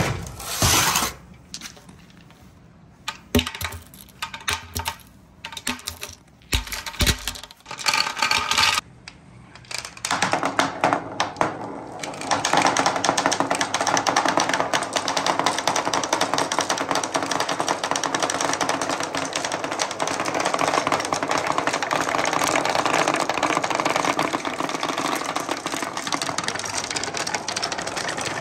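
Scattered knocks and clacks as a brick is set on a perforated wooden slope and marbles are handled, then from about twelve seconds in a dense, continuous clatter of many glass marbles poured from a plastic cup rolling and clicking down the wooden slope.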